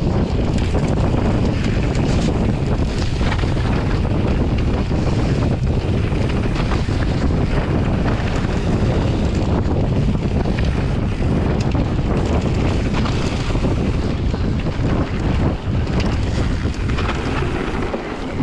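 Wind buffeting the camera microphone during a mountain bike ride, over a steady low rumble of tyres on the trail, with scattered short knocks and rattles from the bike.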